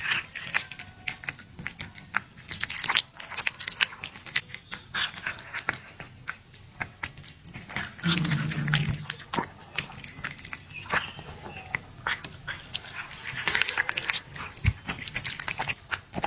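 A cat chewing and licking raw venison close to the microphone: quick irregular wet smacks, clicks and tearing as it bites the meat. A short low-pitched sound comes about halfway through.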